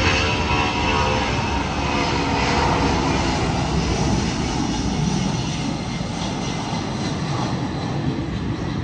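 Airliner's jet engines at takeoff power as it climbs away: a broad steady rumble with a whine that falls in pitch over the first few seconds, easing slightly toward the end.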